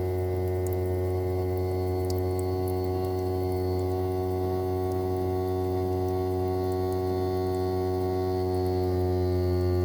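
Daikin ARN22HS air conditioner outdoor unit running, its inverter-driven swing-type rotary compressor giving a steady, pitched hum. Near the end the hum grows a little louder and its pitch begins to shift as the compressor changes speed.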